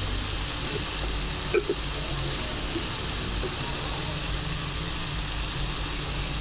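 Chopped onions and tomatoes frying in oil in a pan, sizzling steadily, with turmeric and chilli powder just added. A light knock about a second and a half in.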